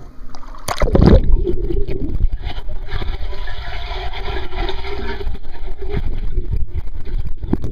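Pool water heard from under the surface: a splash about a second in as the microphone plunges under, then a steady muffled rush and bubbling of water stirred by a swimming child, with another splash as it breaks the surface near the end.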